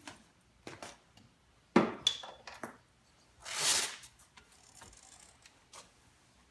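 Handling sounds around a manual wheelchair: a sharp knock about two seconds in, followed by several lighter clicks, then a brief rustling swish.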